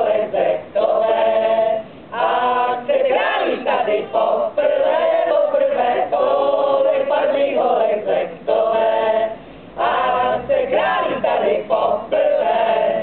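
A group of mostly women's voices, with a man among them, singing a song together from song sheets in short phrases with brief pauses between.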